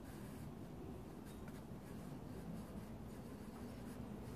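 Pencil scratching faintly on drawing paper in short sketching strokes, over a low steady room hum.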